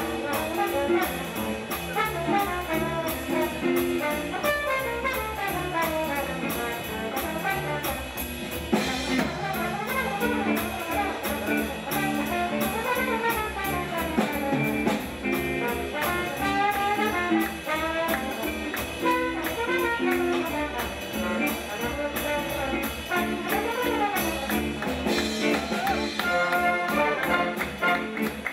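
Swing big band playing jazz, the brass section of trumpets and trombones to the fore, over a steady swinging beat.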